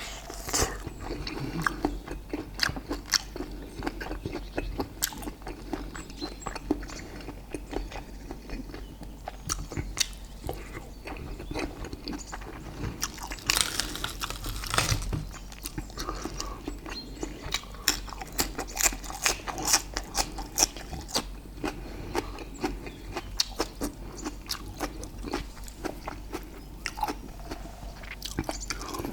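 Close-miked eating of grilled steak and sticky rice: steady chewing and biting with many small wet mouth clicks, and a louder noisy burst about halfway through.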